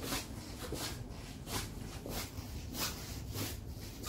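Soft footsteps scuffing on a hard floor at a walking pace, a scuff about every half second, with faint rubbing.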